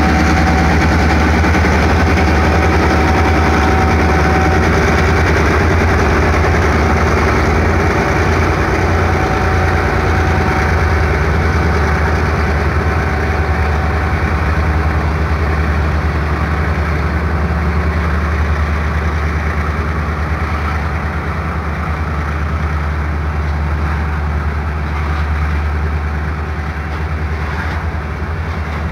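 Freight train cars rolling past close by: a steady heavy rumble and clatter of steel wheels on rail with a low drone under it, easing off slightly toward the end. A thin steady whine sits over it in the first few seconds.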